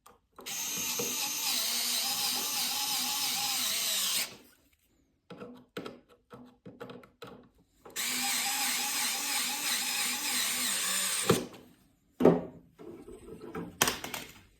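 Handheld power drill running in two runs of about four and three seconds, its motor whine wavering slightly, with knocks and handling clatter between and after.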